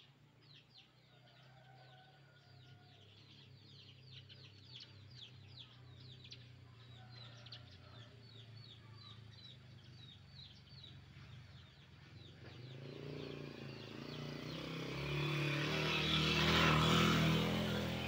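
Sparrows chirping rapidly, many short quick calls, which thin out after about twelve seconds. A motorcycle then approaches, grows loud and passes close near the end, the loudest sound, over a steady low hum.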